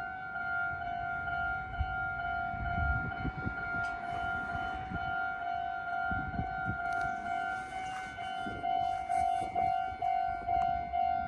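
Japanese railway level crossing's electronic warning bell ringing in a rapid, even repeat, with a Meitetsu Seto Line train rumbling and knocking past over the rails beneath it.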